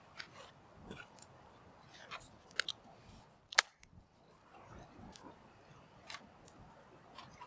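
Campfire crackling: irregular sharp pops and clicks from the burning wood, the loudest about three and a half seconds in, over a faint low hiss.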